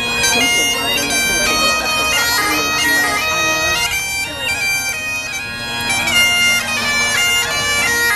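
Great Highland bagpipe played solo: a steady drone under a chanter melody of quickly changing notes.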